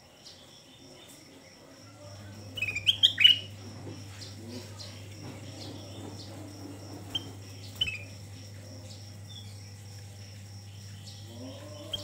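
Ruby-throated bulbul (kutilang emas) calling: a quick run of sweeping chirps about three seconds in, then a couple of short single chirps later. A steady low hum lies underneath.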